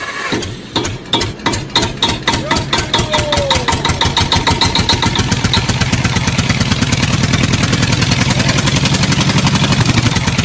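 A small engine pulling away: its firing beats start slow and quicken over the first five or six seconds, then it runs on at a fast, steady rate.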